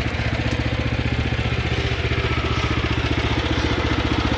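Woodland Mills HM122 sawmill's 9.5 horsepower single-cylinder gasoline engine idling with a steady, even putter.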